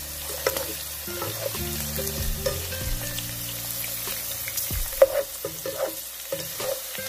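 Chicken, onion and vegetables sizzling in hot oil in a nonstick pan. A spatula scrapes and clacks against the pan now and then as they are stirred, most sharply about five seconds in.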